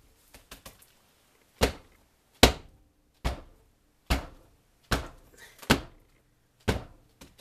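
Silicone loaf mould full of freshly poured cold process soap being lifted and tapped down hard on the table, knocking out air bubbles. A few light knocks come first, then about seven heavy thuds, one a little under every second.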